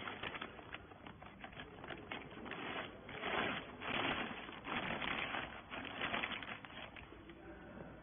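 Clear plastic bag crinkling and rustling as it is worked over a compressed bale of wiper rags, with many small crackles and louder rustling stretches in the middle.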